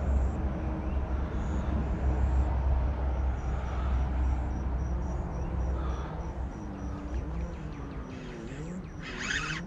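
Low, uneven outdoor rumble that dies away about seven and a half seconds in, followed by a brief hiss near the end.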